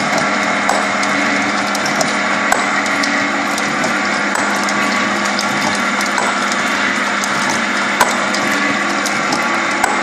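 Sunderland gear planer running, its rack cutter planing the teeth of a steel pinion while cutting oil pours onto the cut. A steady machine hum, with a few sharp clicks.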